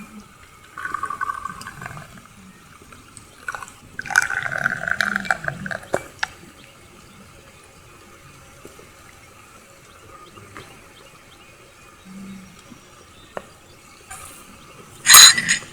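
Liquid being poured in two short pours, about a second in and again about four seconds in. A loud, sharp noise comes near the end.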